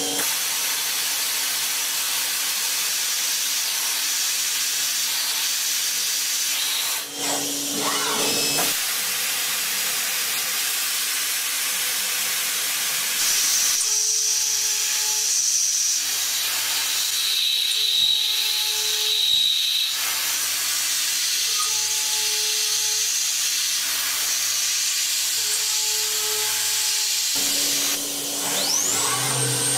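CNC milling machine cutting a metal workpiece with an end mill: a steady hiss with faint machine tones that shift every few seconds as the cut changes. A rising whine comes near the end.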